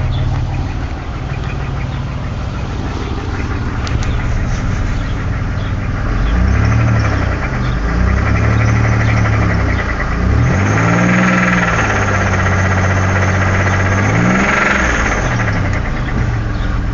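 Pontiac Grand Prix's 3800 3.8-litre V6 idling, then revved up and down several times from about six seconds in. The engine has a confirmed connecting-rod knock.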